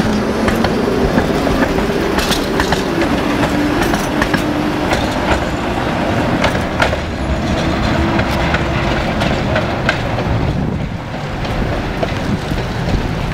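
Two-car Tatra tram passing close, its wheels clacking and clicking over the rail joints under a steady motor whine that fades out about nine seconds in.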